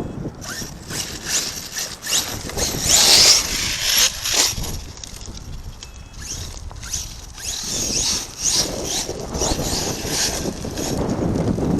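The 8S brushless motor of an ARRMA Kraton RC monster truck whines in repeated bursts as the throttle is blipped and held, the pitch rising and falling. It is loudest about three seconds in.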